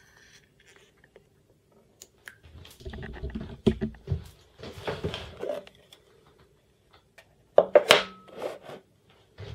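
Crackling, scraping and knocking handling noises from a clear acrylic box being handled on a plywood worktable, with the loudest clatter of knocks about eight seconds in.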